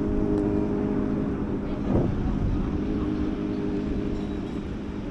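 Motorcycle engine running steadily while descending a mountain pass, slowly getting quieter.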